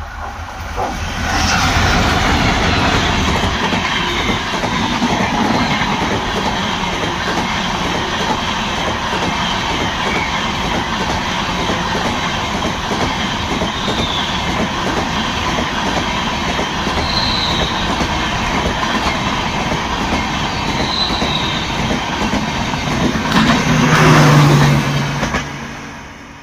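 A passenger train of LHB coaches passing close by at speed: continuous wheel-on-rail rumble and rush, with a few brief high squeals. It swells louder near the end as the last vehicle goes by, then dies away as the train recedes.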